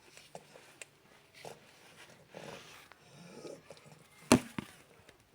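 One-month-old shar-pei puppy snoring: a few soft snoring breaths about a second apart. A sharp click about four seconds in is the loudest sound.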